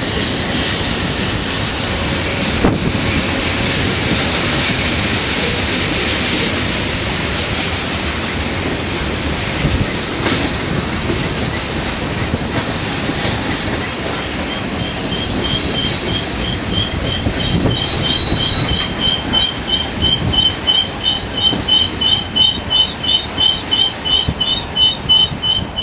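Freight train's tank cars rolling past on the downgrade: a steady rumble of wheels on rail. About halfway through, a high-pitched squeal starts pulsing about twice a second and grows louder toward the end.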